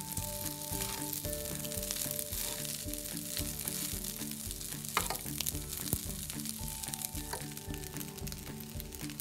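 Egg fried rice sizzling in a hot nonstick wok as it is stir-fried and turned with a spatula. The spatula scrapes through the rice and knocks sharply against the pan twice, about five and six seconds in. Background music plays underneath.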